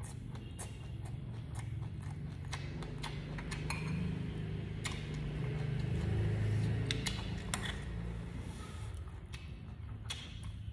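A person chewing food close to the microphone: a steady low munching sound with many scattered wet clicks and crunches.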